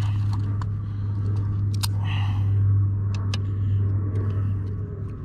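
A steady low hum, with scattered sharp clicks and brief rustles as a fish is handled in a landing net to get a frog lure out of its mouth.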